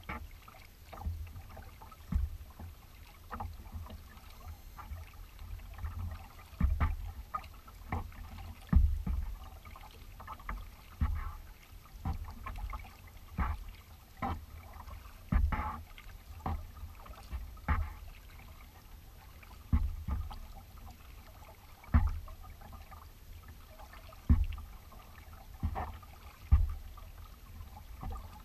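Kayak paddle strokes dipping and pulling through the water, about one a second, spacing out to about every two seconds near the end, over a steady low rumble.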